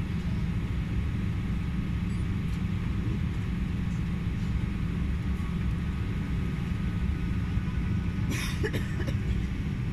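Cabin noise of an Embraer 190 moving slowly on the ground: a steady low rumble with a faint, even whine from its idling turbofan engines. A short burst of noise comes near the end.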